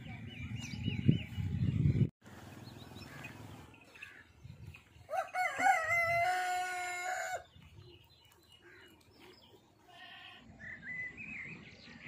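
A rooster crows once near the middle, one long call of about two seconds that rises briefly and then holds, with small birds chirping faintly around it. Before that, low rumbling with a thump runs for about two seconds and cuts off abruptly.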